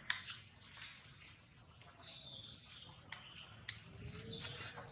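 Birds chirping in the background with short, high whistled notes, with a few sharp clicks at the start and around three seconds in.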